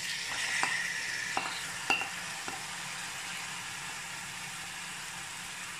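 Marinated chicken pieces sizzling as they are tipped into a hot pot of fried onions, strongest as they land in the first second or so and then settling to a steady sizzle. A few sharp knocks of the spatula against the bowl and pot come in the first two and a half seconds.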